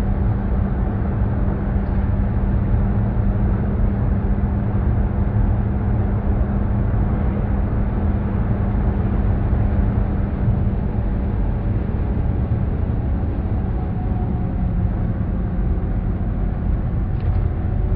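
Steady road noise inside a moving vehicle's cabin: low tyre and engine rumble with a constant hum, at highway speed.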